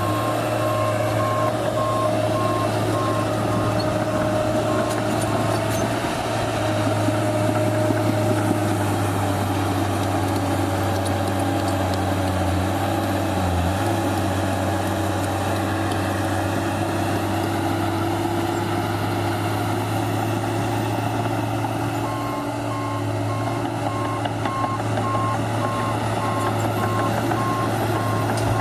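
New Holland D180C crawler bulldozer's diesel engine running steadily under work, with its reversing alarm beeping at a steady rhythm for the first few seconds and again in the last several seconds as the machine backs up.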